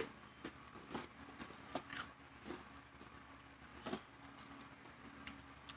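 Faint, irregular mouth clicks and smacks from a person eating a spicy potato crisp, about one to two a second, over a low steady room hum.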